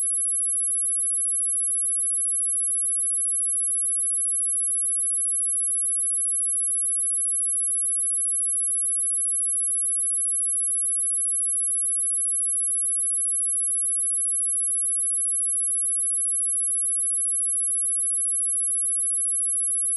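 Steady pure sine-wave test tone at 10807 Hz, a single high-pitched whistle held at constant level, used to test a speaker or shake water and dust out of it.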